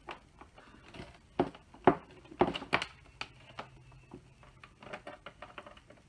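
Cables and a plug being handled and pushed into a socket: a run of light clicks and knocks, the loudest few coming in quick succession about one and a half to three seconds in.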